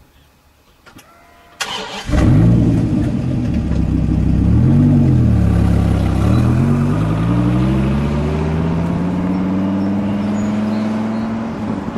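Dodge Viper V10 starting up with a sharp click and the engine catching about two seconds in. It gives a short rev, then pulls away with the engine note rising steadily as it accelerates.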